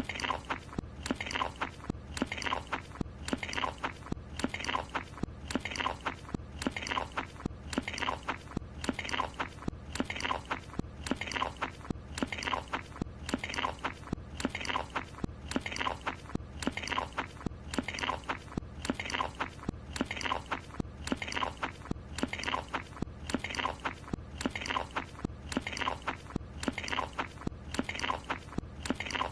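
Cartoon chewing sound of Carl Wheezer munching a croissant: a short, wet, crunchy bite-and-chew sound looped over and over, repeating about once a second.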